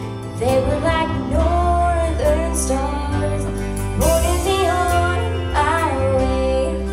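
A female vocalist singing a slow country ballad live into a microphone, with vibrato on held notes, over an instrumental backing with steady bass notes.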